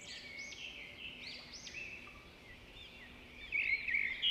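Birds chirping and twittering in a birdsong ambience: many short, quick calls that rise and fall in pitch, overlapping one another, growing louder near the end.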